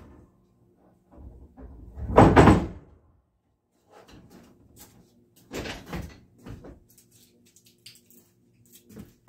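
Things being handled and set down: a heavy clunk about two seconds in, another just past five seconds, with small clicks and rattles between over a faint steady hum.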